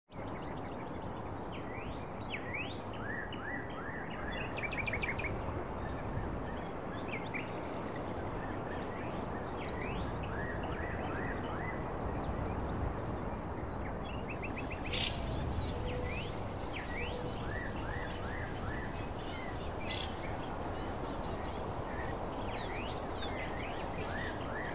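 Outdoor ambience: birds chirping repeatedly over a steady background hiss, with a steady high insect trill joining about fifteen seconds in.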